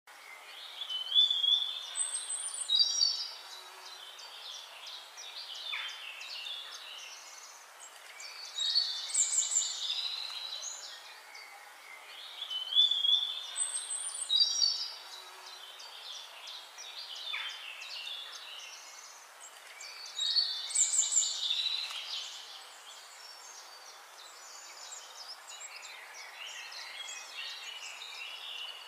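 Black drongo calling: groups of high, sharp and whistled notes, some sliding up or down, delivered in short phrases with pauses of a few seconds between them.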